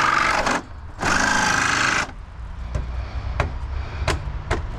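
Handheld power saw cutting through nails in wood framing, running in two bursts with a high whine and stopping about two seconds in, followed by several sharp knocks.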